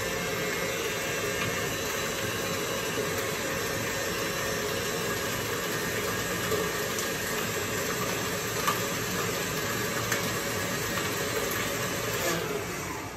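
Stand mixer running steadily with its whisk attachment, whipping butter into crème pâtissière to make crème mousseline. Its motor whine falls and fades as the mixer winds down near the end.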